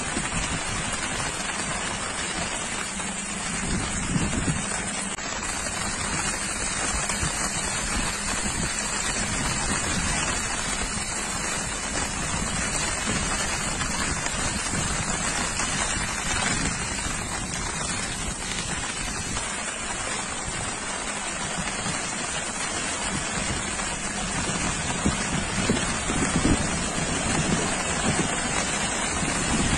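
Steady hiss of rain and flowing floodwater on a flooded road, with wind buffeting the microphone at times. Near the end a car drives through the water.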